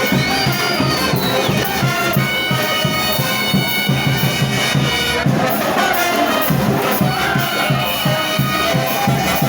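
Frevo music: a brass band with trumpets and trombones playing over a fast, even drum beat.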